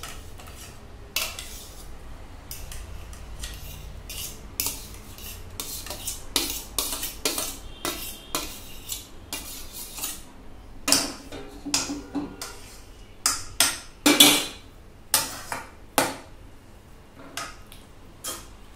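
A metal spoon scraping and knocking against a metal plate and a kadhai as mashed boiled potatoes are tipped into the pan and stirred in. It is a long run of sharp metal clinks and scrapes, loudest from about halfway through.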